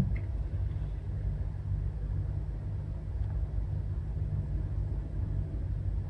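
Steady low background rumble.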